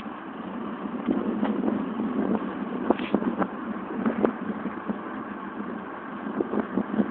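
Wind rushing over the microphone of a moving bicycle, with road noise and scattered light clicks and rattles.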